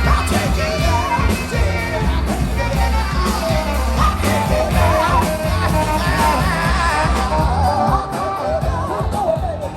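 Live band playing loud rock music over a heavy, steady bass, with a wavering melodic line of singing or lead instrument on top.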